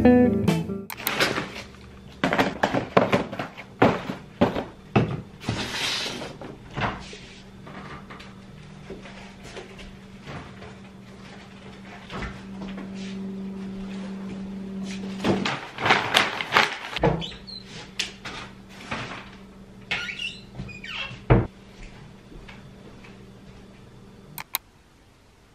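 Kitchen clatter as groceries are put away: repeated knocks, clicks and rattles of items and of the refrigerator and cupboard doors opening and closing, over a steady low hum through the middle.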